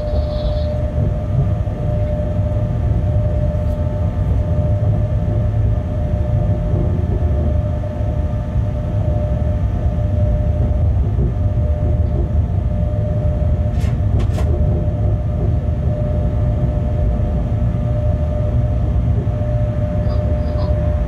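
Bombardier Traxx class 186 electric locomotive running light at slow speed, heard from the cab: a steady low rumble with a constant whine over it. Two sharp clicks about two-thirds of the way through.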